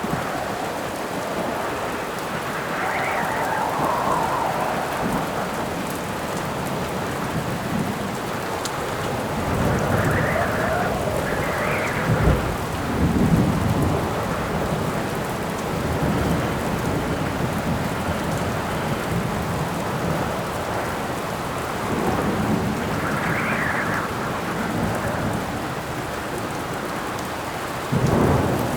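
Steady rain with gusts of wind that swell and die away several times, and rolls of thunder, the loudest about halfway through and another near the end.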